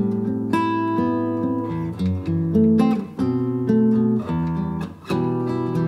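Acoustic guitar music: strummed and plucked chords changing every second or so.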